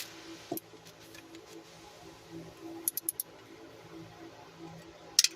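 A few light metallic clicks and clinks from hand tools being handled on the transmission filter bolts: one about half a second in, a quick cluster around three seconds and another near the end. A faint steady hum runs underneath.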